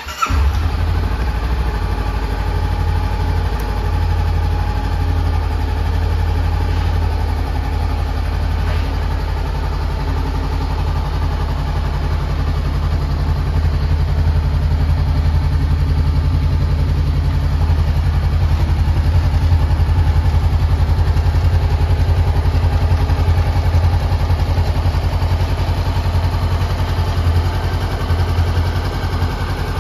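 Honda CB500X's 471cc parallel-twin engine starting right at the outset, then idling steadily.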